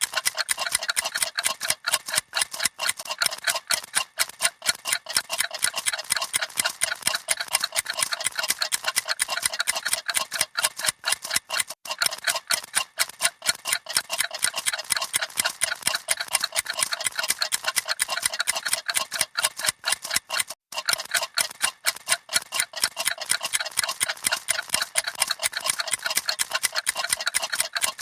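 Several clocks ticking rapidly at once, a dense, irregular stream of overlapping sharp ticks. There is a momentary gap about two-thirds of the way through.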